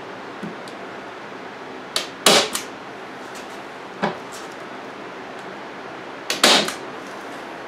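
Staple gun driving staples through screen netting into a pine 1x2 frame: three sharp shots a couple of seconds apart, the first and last the loudest.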